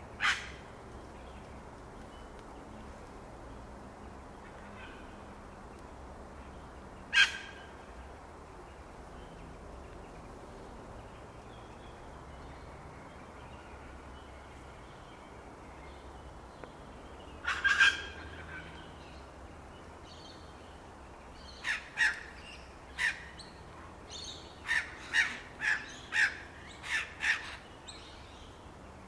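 Birds calling: short sharp calls, a few single ones several seconds apart, then a quick run of about a dozen in the last third, over a steady low background rumble.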